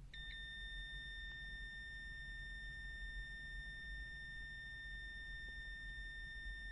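Digital multimeter's continuity buzzer sounding one steady, high beep: the probes are across about 40 ohms, under the meter's beep threshold of about 50 ohms.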